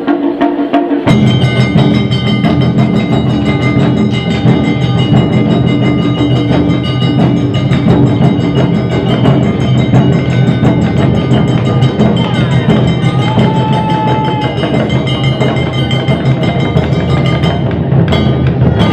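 Awa odori festival band music: drums and a small hand gong striking a fast, driving rhythm, with held melodic notes over them. The full band comes in about a second in.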